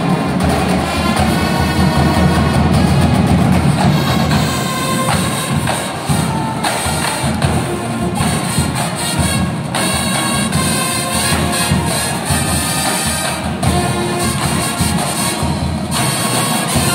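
Marching band playing, drums striking under sustained wind-instrument lines.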